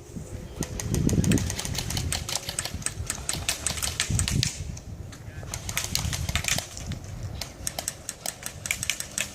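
Airsoft guns firing in rapid runs of sharp clicking shots, with a few dull low thumps in between.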